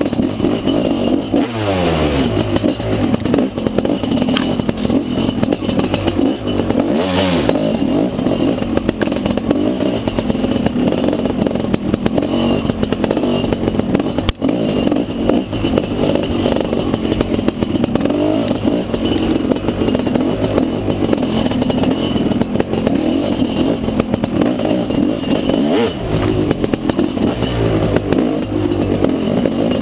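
Dirt bike engine running hard on a trail ride, its revs repeatedly rising and falling as the throttle is worked, with a single sharp click about fourteen seconds in.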